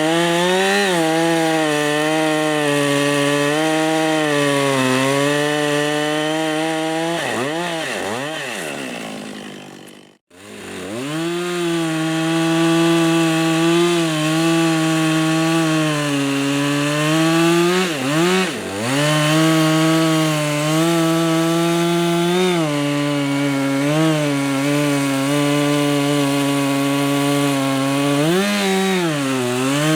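Two-stroke chainsaw running at high revs while cutting wood, its pitch sagging and recovering as the chain loads up in the cut. About a third of the way in the sound falls away to near silence, then it is straight back at full revs.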